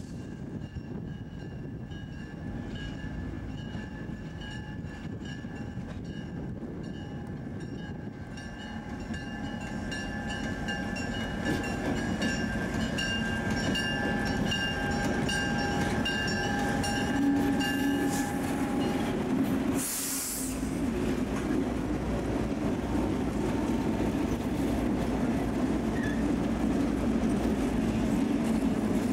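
DMIR diesel locomotives hauling a limestone train, their engines and wheels rumbling as it grows louder on approach and passes close by. Steady high tones with a regular pulse about twice a second run through the first two-thirds. They stop with a brief burst about 20 seconds in, after which a heavier low rumble of the passing train takes over.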